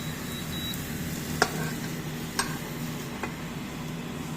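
Oregano leaves sizzling as they heat in a pan, with three sharp clicks about a second apart as the leaves are turned over in the pan.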